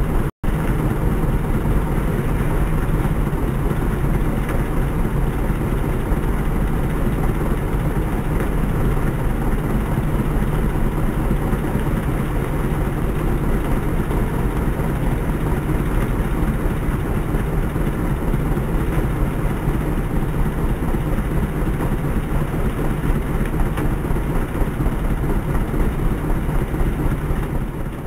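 Engine-driven rice thresher running steadily at work: the small engine's drone together with the rush of the threshing drum as rice stalks are fed in and straw is blown out.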